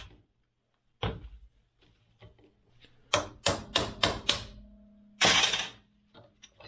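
Bench work on a turbocharger actuator: a single knock, then a quick run of about five sharp taps on metal, followed by a short burst of hiss.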